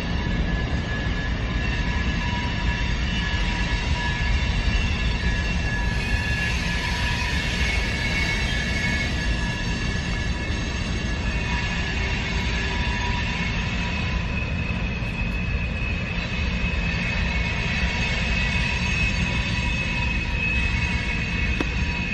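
Yamaha snowmobile engine on a go-kart running at a steady speed: a continuous rumble with steady high-pitched whining tones over it.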